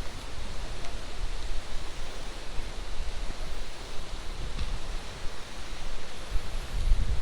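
Wind buffeting the microphone outdoors: a steady hiss with gusty low rumbling, strongest near the end.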